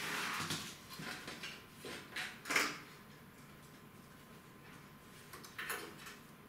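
Power-supply cables being pulled through a steel PC case: rustling of the cable sleeves with light knocks and clicks of the plastic connectors against the metal, busiest in the first three seconds and again briefly near the end.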